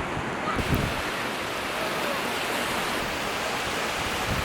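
Ocean surf washing steadily onto a sandy beach, with wind gusting on the microphone.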